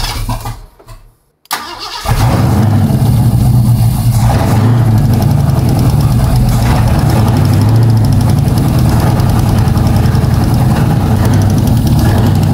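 Ford 460 cubic-inch big-block V8 cranking briefly, then catching about two seconds in and settling into a loud, steady idle. The owner suspects a collapsed lifter in this engine.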